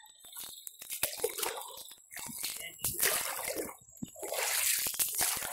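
Water splashing and dripping in irregular bursts around a canoe in shallow river water, with scattered small knocks.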